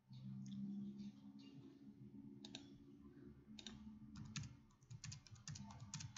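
Faint computer keyboard typing: scattered key clicks that come faster and closer together in the second half. A low hum sounds for the first two seconds or so.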